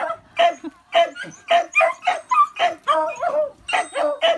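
Beagle puppies yapping in play, a rapid run of short, high-pitched barks and yips at about three a second.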